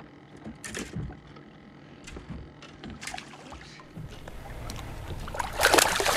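Water splashing and lapping at the side of a small fishing boat while a fish is landed, with a few light knocks. About four seconds in, a steadier rushing noise of water and wind on the microphone rises, loudest near the end.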